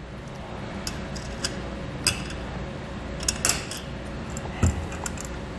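Light metallic clicks and clinks of a steel bolt, washers and nut being fitted by hand through a steel ladder-rack clamp bracket, scattered over a steady low hum.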